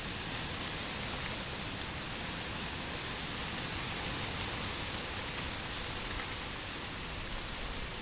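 Steady, even rushing of a distant waterfall across the valley, with no breaks or changes in level.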